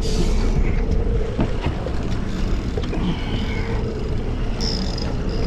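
Boat's outboard motor running steadily under way, with wind and water noise over it. A thin, high, steady whine joins near the end.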